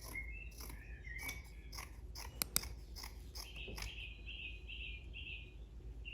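A small bird chirping in short, high, repeated notes, with a run of about five evenly spaced chirps past the middle. A few sharp clicks are mixed in.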